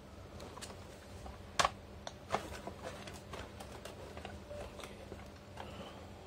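Scattered light clicks and taps, the sharpest about a second and a half in and again near two and a half seconds, over a faint steady electrical hum.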